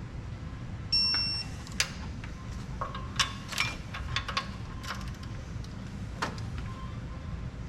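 Hand tools and metal parts clinking and knocking during engine assembly work: a short metallic ring about a second in, then a handful of separate sharp clicks and taps, over a steady low shop hum.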